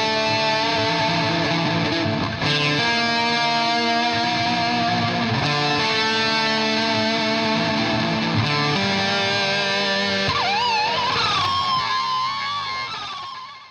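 Background guitar music: held chords, then a lead note bending and wavering in pitch from about ten seconds in, fading out at the end.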